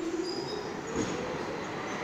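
New York City subway train pulling out of the station, its traction motors whining upward in pitch as it picks up speed over a steady rumble of wheels on rail, with a single knock about halfway through.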